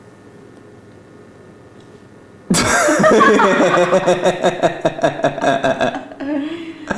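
Infant giving a sudden high-pitched squealing, laughing vocalisation about two and a half seconds in, breaking into rapid pulses of about five a second before trailing off.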